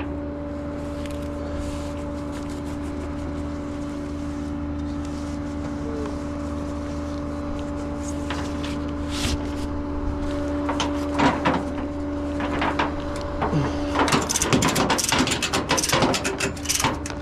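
A vehicle engine running at a steady speed with a constant hum and whine. From about 14 seconds in, a flurry of rattling and clanking clicks is heard over it.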